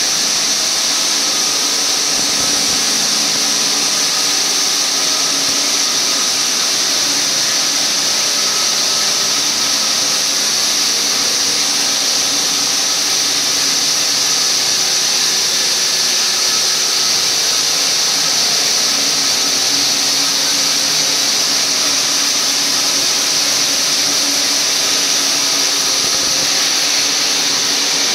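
Large plate-sawing machine running, a loud, steady, high-pitched hiss over a mechanical drone that does not change.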